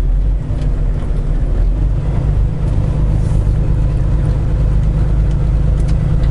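Freshly rebuilt Cummins ISX15 inline-six diesel of a semi truck running steadily under way, a deep, low drone heard from inside the cab. Its deepest rumble eases about half a second in.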